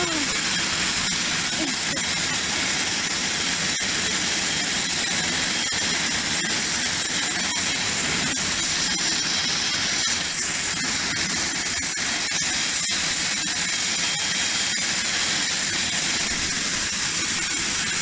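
Turbofan engines of a business jet running at idle: a steady hiss with a thin, high whine.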